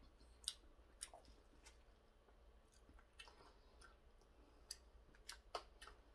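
Faint chewing of a steamed meat dumpling: soft wet mouth clicks and smacks at irregular intervals.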